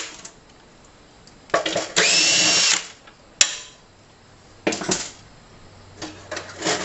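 A cordless power drill backs out the screws of a metal street-light fixture. It starts with a couple of short trigger taps, then runs for about a second with a steady whine. A sharp click follows, then a shorter burst, and near the end a light metal clatter.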